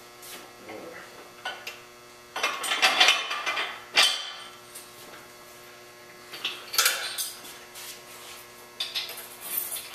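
Steel engine hoist parts and hook chain clinking and rattling as they are handled, with a sharp clank about four seconds in, over a steady electrical hum.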